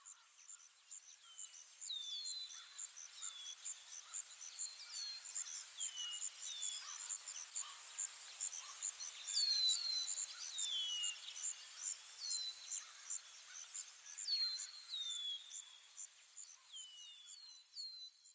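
Nature ambience of birds and insects: a fast, steady high insect chirping with short falling bird whistles repeated over it, often in pairs. It fades in over the first couple of seconds and fades out at the end.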